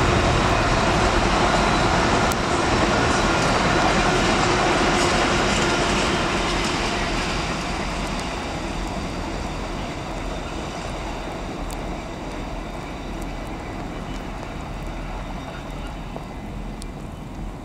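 Freight train of wagons rumbling past and fading away over the first several seconds, leaving a quieter steady hiss of rain with a few faint ticks.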